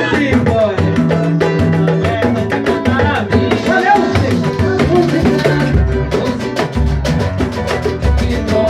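A percussion group rehearsing: drums and percussion play a steady, driving rhythm, with voices singing over it.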